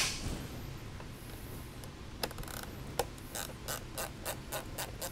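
Hand ratchet clicking as a fairing bolt is worked loose: a few single clicks, then a quick run of clicks about four a second near the end.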